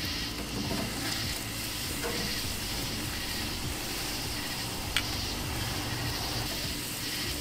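Thick rib eye steak sizzling on a grill grate over red oak coals, with fat dripping into the fire and flaring up: a steady hiss with light crackle. There is one sharp click about five seconds in.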